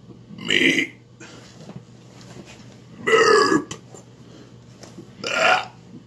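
A man belching on purpose: three loud, drawn-out burps, one just after the start, one about three seconds in and one near the end.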